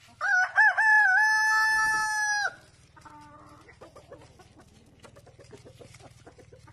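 Rooster crowing: a few short broken notes, then one long held note that cuts off about two and a half seconds in.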